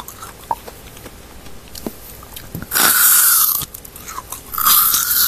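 Biting and chewing a frozen ice cream bar close to the microphone: two loud, crunchy bites of about a second each, one about three seconds in and one near the end, with small clicks between.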